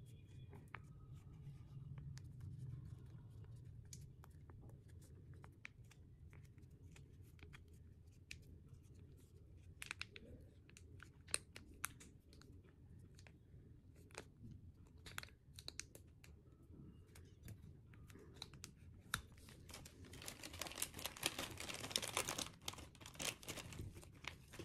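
Paper-and-plastic sachet of hair-colour powder being handled and torn: scattered small clicks and crinkles, then about twenty seconds in a longer spell of crinkling and tearing.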